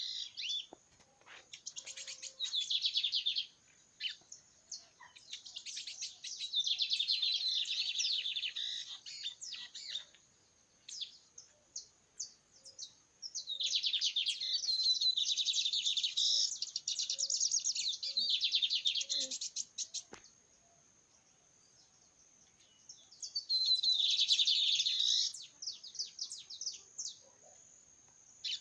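A cigarrinha, a Brazilian seedeater, singing its 'metralha' song: long bouts of very rapid, rattling, machine-gun-like high notes, four bouts in all with short pauses between them.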